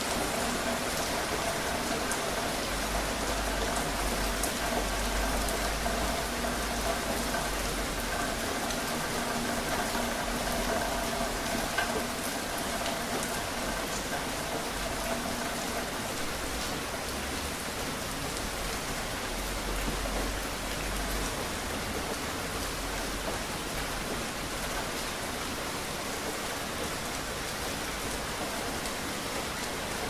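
Steady rain falling, with scattered drops ticking on window glass. A faint steady hum sits under the rain and fades out about halfway through.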